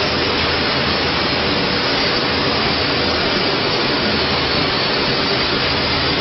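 5-axis CNC router running as it carves a sculpted block: a loud, steady, unchanging machine noise.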